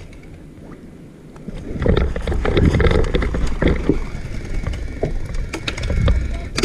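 Paintball markers firing: irregular sharp pops in quick clusters, starting about two seconds in and coming again near the end, over a low rumble.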